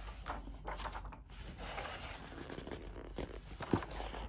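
Paper pages of a softcover book rustling as they are flipped through by hand, with a sharper page flap near the end.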